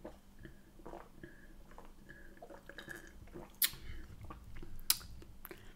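Quiet swallowing and mouth sounds while drinking cola from a glass, then a plastic packet crinkling, with two sharp crackles about three and a half and five seconds in.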